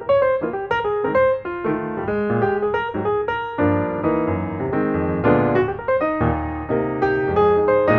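Background piano music: a melody of single notes over chords, several notes a second.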